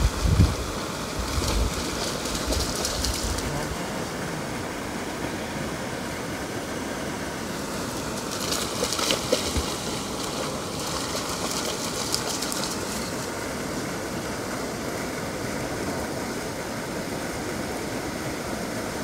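Two dogs, a husky and a large black dog, splashing as they run through shallow river water, in two spells: one right at the start and a longer one about eight seconds in. A steady rushing background noise runs underneath.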